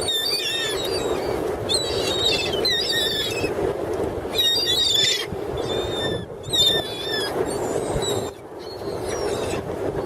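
Seagulls crying in repeated bursts of high, wavering squealing calls, about five times, over a steady rushing background.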